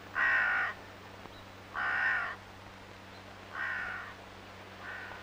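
A crow cawing: four harsh calls about a second and a half to two seconds apart, the last one fainter.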